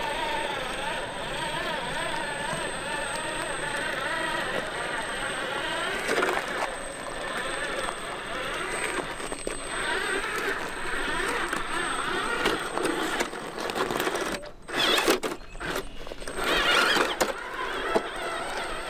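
Electric motor and drivetrain of a 1/10-scale RC4WD scale truck whining, its pitch wavering up and down with the throttle. Several loud, noisy bursts come near the end.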